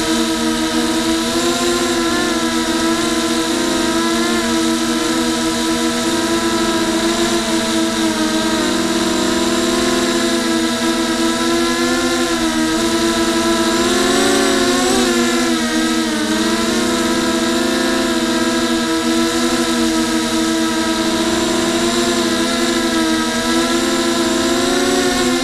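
Racing quadcopter's electric motors and propellers whining, recorded by its onboard camera; the pitch wavers up and down with the throttle, with a bigger swing about halfway through.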